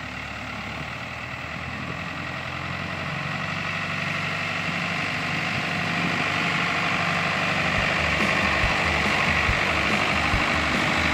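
Case IH tractor with a front loader driving past, its diesel engine running steadily and growing louder as it comes closer.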